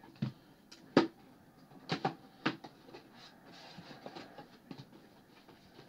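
A cardboard mini-helmet box being opened by hand: a handful of sharp taps and knocks as the flaps are worked open, the loudest about a second in, followed by quieter cardboard rustling.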